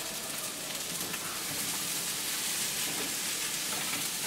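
Fried rice sizzling in a frying pan over a gas flame: a steady frying hiss that grows a little louder toward the end.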